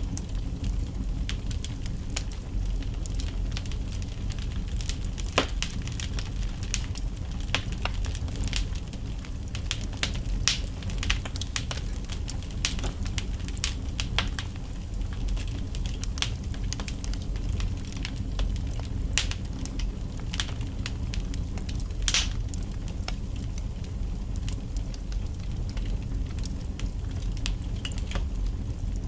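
Wood logs burning in a fireplace: a steady low rumble of flames with frequent irregular crackles and sharp pops, one louder pop about two-thirds of the way through.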